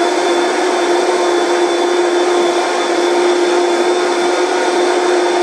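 High-powered countertop blender running at full speed, a loud, steady whir with a constant motor hum, blending soaked split mung beans and water into a thick pancake batter.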